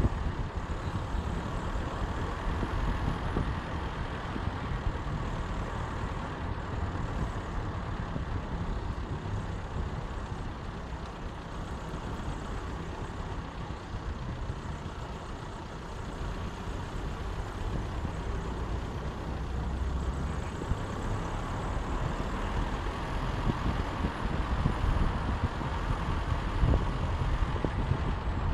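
Steady engine and tyre noise of a car driving along a road, heard from on board, over a heavy low rumble.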